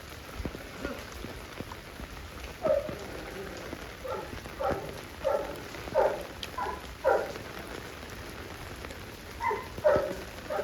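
Steady monsoon rain falling on open ground. A short animal call repeats a little under twice a second from about three seconds in, and again near the end.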